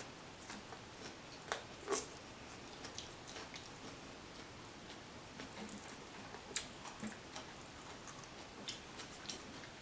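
Close-up eating sounds: quiet chewing with scattered small mouth clicks and smacks, a few louder ones about one and a half to two seconds in and again after six seconds.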